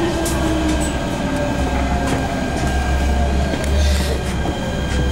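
MTR K-Train electric multiple unit heard from inside the car as it slows into a station. A motor whine falls slowly in pitch over a steady low rumble, with occasional clicks from the wheels on the track.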